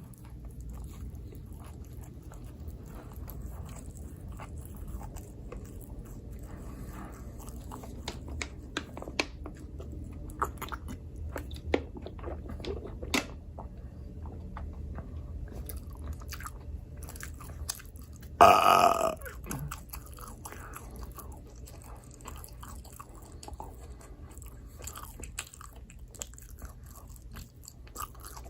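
Close-miked chewing and biting of microwave pizza, with scattered crunchy crackles from the bites. About two-thirds of the way through comes one loud burp, under a second long.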